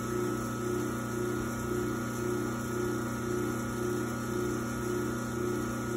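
Mechanical roughing vacuum pump of a Varian M4 diffusion pump system running steadily, a low hum with a slow regular pulse, pumping the system down through the open roughing valve.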